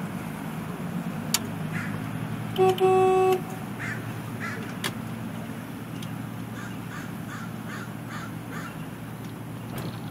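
Boat engine running steadily at slow speed, with a loud horn blast lasting a little under a second about two and a half seconds in. Near the end comes a quick run of short, repeated bird calls.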